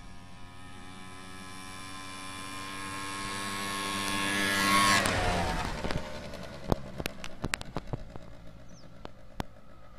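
The small combustion engine of a motorized wheelbarrow running as the machine approaches, growing steadily louder to a peak about five seconds in as it passes close by. Its pitch then drops and the sound fades as it rides away. A few sharp clicks follow in the second half.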